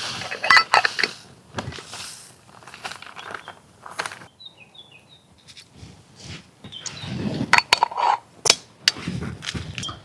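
Irregular knocks, clicks and rustling, with a few short bird chirps in the middle.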